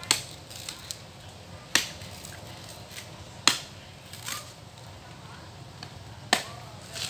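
Four sharp chopping strikes of a blade at a coconut palm during the coconut harvest: the first three evenly spaced less than two seconds apart, the fourth after a longer pause.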